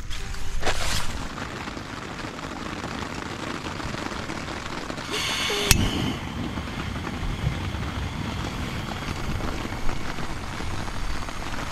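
Portable butane camping stove being lit: gas hisses from the burner and the piezo igniter clicks once, sharply, about six seconds in, with a fainter hiss of gas after. Rain falls on the tent.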